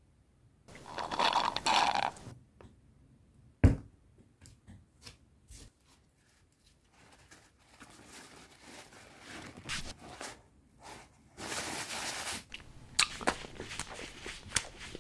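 A slurp through a drinking straw, then a single sharp knock as the cup is set down on the table. After that comes paper napkin rustling as fingers are wiped, with a louder burst of crumpling paper about three quarters of the way through and small clicks of handling near the end.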